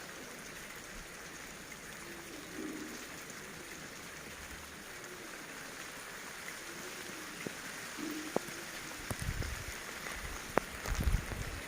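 Heavy rain falling steadily, with scattered sharp drip clicks and a few low thumps near the end.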